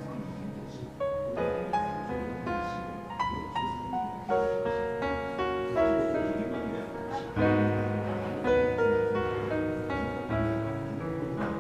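Piano music playing, a slow run of notes and chords.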